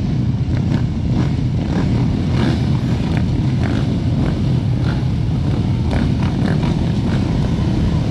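Motor vehicle running: a steady low rumble, with faint ticks and rattles over it.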